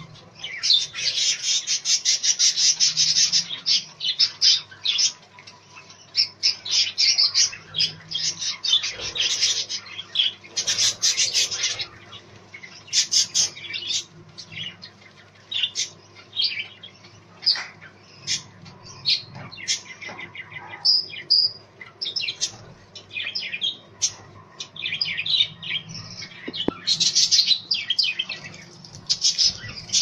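A flock of budgerigars chattering: a dense stream of quick, high chirps and warbles that swells and ebbs.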